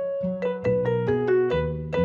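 Background music: a keyboard playing a simple melody, several notes a second.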